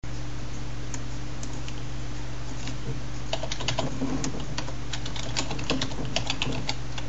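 Typing on a computer keyboard: a few single keystrokes, then a quick run of key clicks from about three seconds in. Underneath is a steady low electrical hum.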